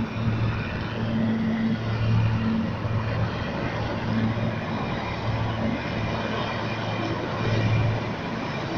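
Helicopters flying overhead in formation: a steady rotor and turbine noise with a low drone that swells and fades.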